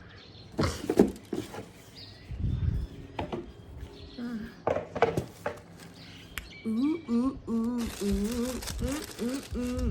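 Clicks, knocks and rustles of a parcel's packaging being handled and opened. From about two-thirds of the way in, a woman hums a short, repeating tune.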